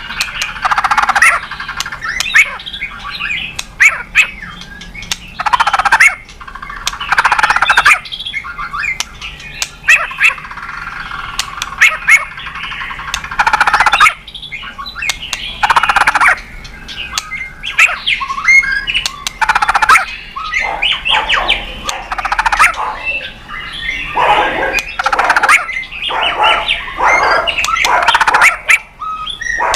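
White-rumped shama singing continuously: a long string of loud, varied phrases of whistles and rapid notes, one after another with only short pauses.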